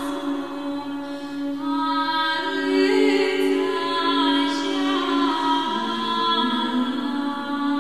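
Unaccompanied sung chant: voices sing a slow melody over a steady held low drone note.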